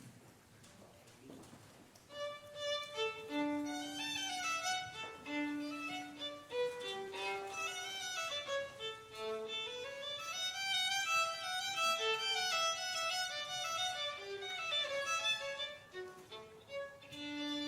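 Violin playing a melody of sustained, bowed notes, beginning about two seconds in after a near-quiet opening.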